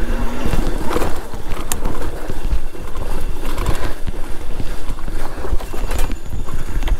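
Irregular knocking and rattling over a constant low rumble: a Super73 S2 e-bike jolting along a rough dirt mountain-bike trail.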